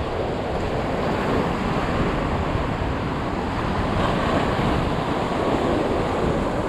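Rough surf washing and breaking against a concrete jetty, a steady churning noise, with wind buffeting the microphone.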